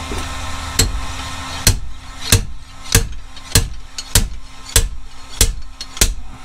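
Steady hammer blows, about nine, roughly two every second and a bit, striking a pilot bearing puller to work a tight pilot bearing out of the back of the crankshaft.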